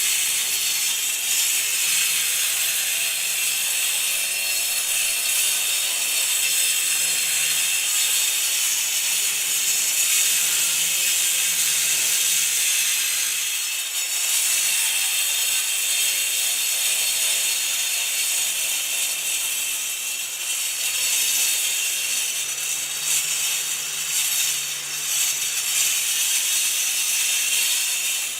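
Angle grinder with a cutting disc cutting concrete: a steady, loud, high-pitched grinding hiss that eases a little about halfway through and again near the end.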